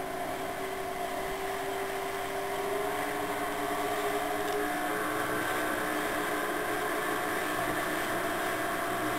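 Motorboat engine running steadily under way, with the rush of water and wind over the hull; the engine note steps up slightly about halfway through.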